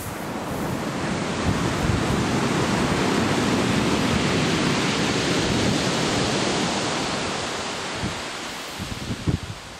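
Surf on a shingle beach: a wave swells up, breaks and washes back over several seconds, then fades. Strong wind buffets the microphone, with a few low thumps near the end.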